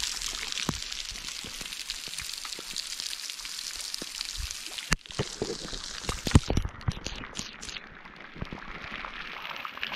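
Water seeping from a cave ceiling and falling like rain in a steady hiss, a small trickling cascade. Heavy drops strike close by, with several sharp knocks between about five and seven seconds in.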